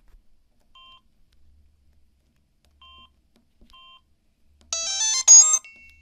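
Samsung SGH-C260 mobile phone: three short, faint keypad beeps as its menu keys are pressed, then about four and a half seconds in a loud polyphonic ringtone of quick electronic notes starts playing, the phone's preview of the highlighted tone.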